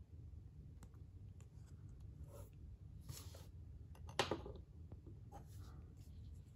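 Clear plastic toploader holding a card rubbing softly in the hands, then one sharp plastic click about four seconds in as it is set into a plastic display stand on a wooden tabletop, followed by a faint rub.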